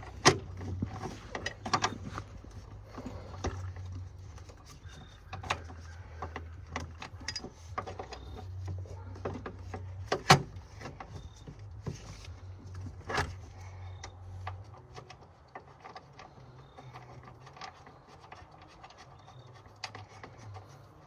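Scattered metal clicks and knocks of hand tools and fasteners being handled while truck battery hardware is refitted by hand, with a few sharper knocks near the start, about 10 seconds in and about 13 seconds in.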